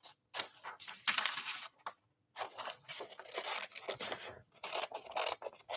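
Scissors snipping through a paper template sheet, trimming off the excess in a run of quick cuts with a short break about two seconds in.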